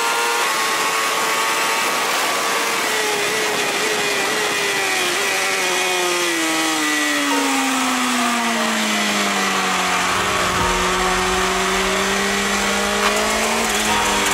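BMW S1000RR sportbike's inline-four engine heard from the rider's seat on track, its revs falling steadily for several seconds as the bike leans into a corner, then holding low and starting to rise again near the end. Wind rush runs underneath.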